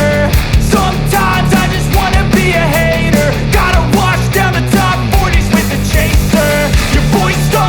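Background music: a rock-style song with a steady drum beat, bass and a melodic lead line.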